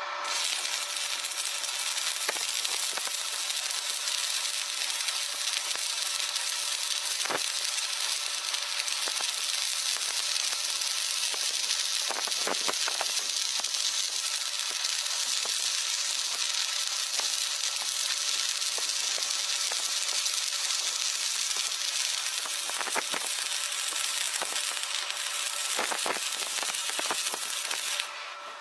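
MIG welding arc sizzling and crackling steadily through one long continuous weld, starting and stopping abruptly.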